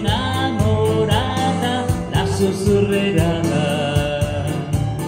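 A man singing an Italian ballad in Italian over an instrumental backing track, with steady bass underneath.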